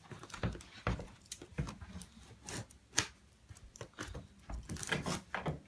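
A cardboard box and its packaging being handled and cut open: irregular knocks, clicks and rustles, with one sharper knock about three seconds in.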